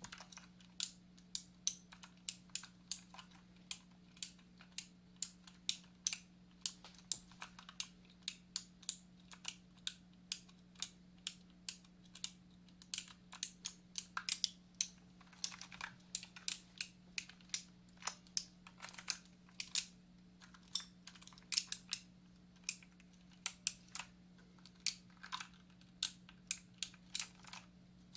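Typing on a computer keyboard: irregular keystroke clicks, several a second with brief pauses, over a faint steady hum.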